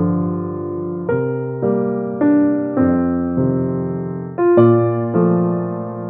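Background music: electric piano playing slow chords, each struck and left to fade, about one every half second to a second.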